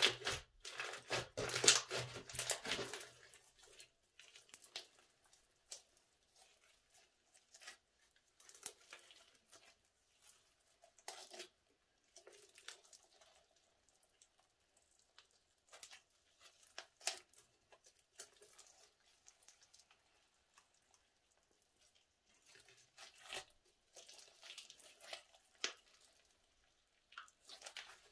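Clear glitter slime being squeezed, stretched and folded by hand, giving sticky crackling and tearing sounds. Loudest and busiest in the first few seconds, then scattered softer crackles, with another busy stretch near the end.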